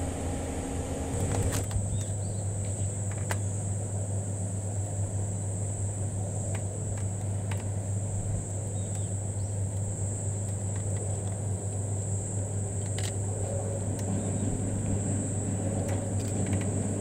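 About a second of car cabin road noise, then a steady high-pitched shrill of summer insects, cicadas most likely, over a steady low hum, with a few faint clicks.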